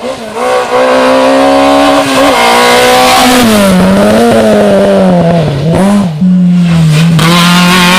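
Rally car engine at full throttle, its pitch holding, then dropping and climbing again as it lifts and picks back up. There are brief sharp drops just after the start and about six seconds in.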